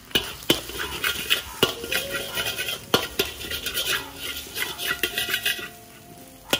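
A spatula stirring eggs in a frying pan, with many quick sharp clicks and scrapes against the pan. The stirring stops about five and a half seconds in.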